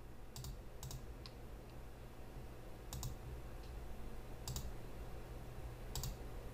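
Computer mouse clicking about five times, single sharp clicks a second or more apart, over a low steady hum.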